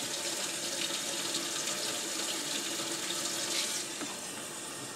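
Kitchen tap running steadily, filling a glass with warm water, shut off right at the end.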